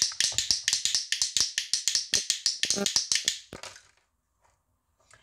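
A rapid run of sharp clicks, about eight to ten a second, thinning out and stopping a little under four seconds in.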